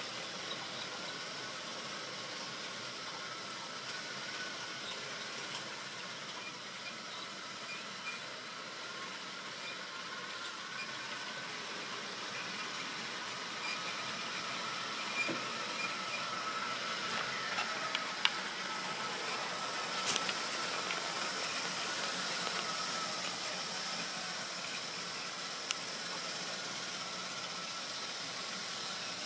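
Model railway train running on its track: a steady whirring hiss from the electric motor and wheels on the rails, with a few sharp clicks in the second half.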